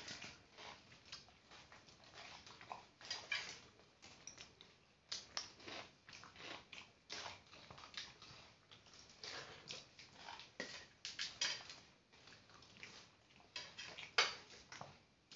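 A person eating a meal by hand: chewing and mouth smacks in irregular quick clicks, mixed with the soft sound of fingers working rice in a steel bowl.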